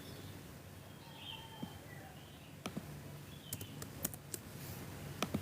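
Several light, sharp clicks at irregular intervals, two in quick succession near the end, over faint room noise, with a faint short chirp about a second in.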